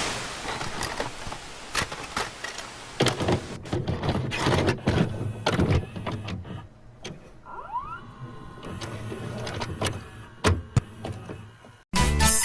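VCR mechanism taking in and loading a VHS cassette: a small motor whirring with a series of clicks and clunks, with a hiss of static over the first few seconds.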